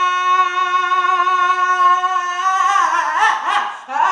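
A man's voice holding one long, steady sung note, then breaking off about two and a half seconds in into short sliding vocal sounds.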